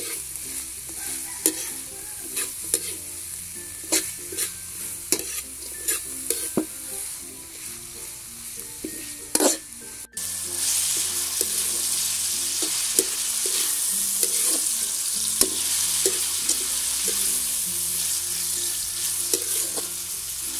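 Shredded carrots and green beans stir-frying in a steel wok: a metal spatula scrapes and clinks against the pan over sizzling oil. About halfway through the sound cuts out for a moment, then the sizzle is louder and steadier, with fewer scrapes.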